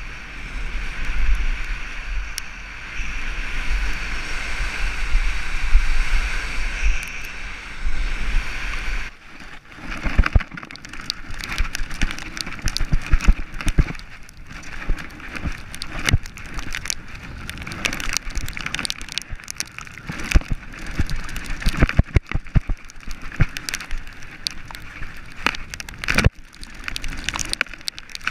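Wind rushing over a helmet-mounted action camera as a mountain bike descends a downhill trail at speed. About nine seconds in the sound changes to the bike clattering and knocking over rough, wet trail, with many sharp rattles from the frame and components.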